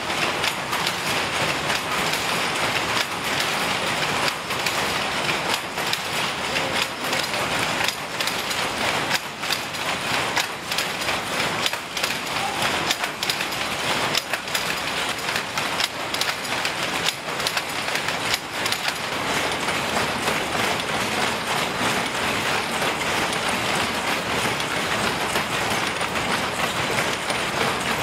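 Power looms running in a weaving shed, several machines together making a steady, dense mechanical clatter of rapid knocks.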